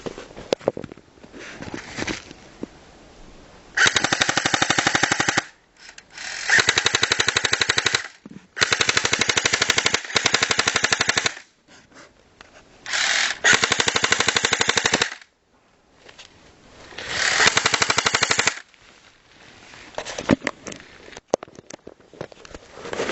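Airsoft gun firing on full auto: about five long bursts of rapid, evenly spaced shots, each lasting one and a half to three seconds, with short pauses between them.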